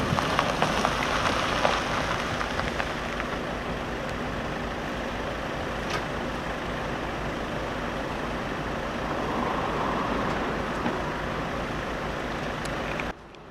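A vehicle engine running steadily with a continuous rushing noise, and some crackling in the first couple of seconds. The sound cuts off sharply just before the end.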